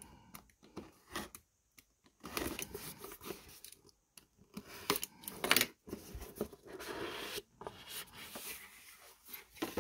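A cardboard trading-card box being handled and opened: a utility knife slitting the seal, then the box flaps opening and the inner tray sliding out, heard as a broken run of scratching, rustling and sharp clicks.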